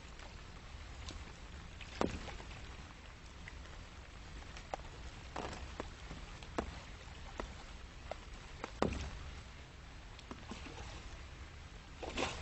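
Water sloshing and splashing from a hooked mirror carp at the bank's edge, with scattered sharp knocks and splashes, the loudest about two seconds in and again near nine seconds.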